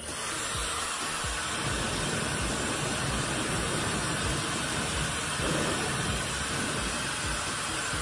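Dyson Supersonic hair dryer switched on and blowing a steady rush of air. It starts abruptly right at the beginning and then runs evenly.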